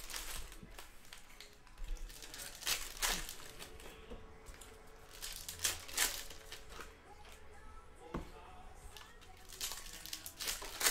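Plastic trading-card pack wrappers being torn open and crinkled by hand, in irregular crackles with several louder rips.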